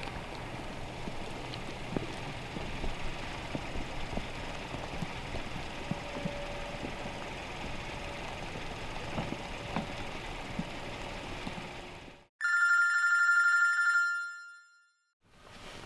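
Steady background noise with faint scattered knocks cuts off abruptly, and a telephone then rings for about two seconds near the end, a loud electronic ring of two high steady tones.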